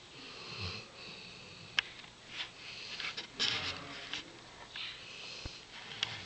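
A sleeping dog snoring: two slow, wheezy breaths about three seconds apart, each with a low rumble under a hiss. A sharp click about two seconds in and a fainter one near the end.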